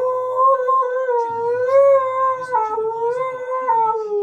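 Husky-malamute cross humming: one long, unbroken hum whose pitch wavers slowly and steps down slightly a couple of times.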